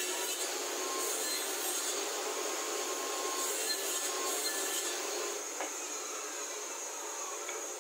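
Homemade table saw and its dust extractor running with a steady whir while a plywood workpiece on a crosscut sled is fed through the blade.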